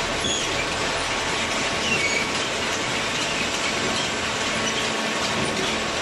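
Steady machinery noise with brief high-pitched squeaks and faint clatter through it.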